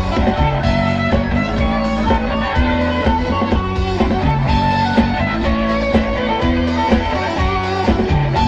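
Live rock band playing: electric guitars and bass guitar over a drum kit keeping a steady beat.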